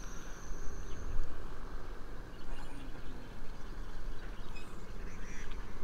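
Outdoor background noise: a steady low rumble under a high, thin, insect-like whine that stops about a second in, with a few faint chirps later on.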